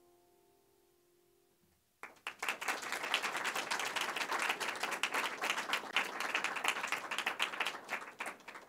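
The last piano notes fading out, then a small audience clapping, starting suddenly about two seconds in and dying away near the end.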